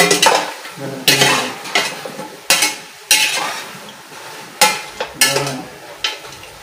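A metal ladle stirring and scraping native chicken pieces frying in a stainless steel pot, with about eight scraping strokes over a steady sizzle. The chicken is frying in the fat and juice it has rendered, before any water goes in.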